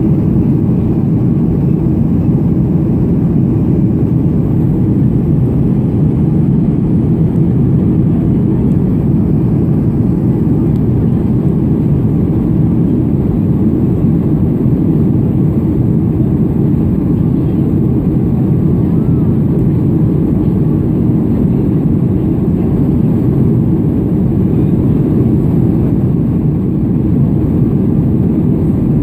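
Steady, low cabin roar of a Boeing 737-200's Pratt & Whitney JT8D turbofan engines and rushing air, heard inside the cabin over the wing during the climb after takeoff.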